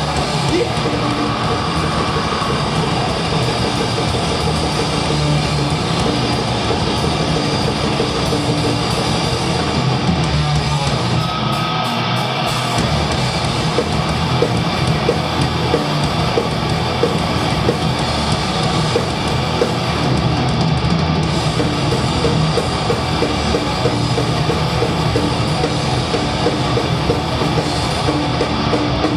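Death metal band playing live: heavily distorted guitars, bass and drum kit in a dense, loud, unbroken wall of sound, with the low end thinning briefly about twelve seconds in.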